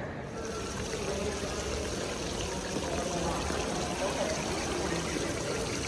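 Indoor water-wall fountain: water sheeting down a stone wall and splashing into a pebbled pool, a steady rushing trickle. Faint voices murmur underneath.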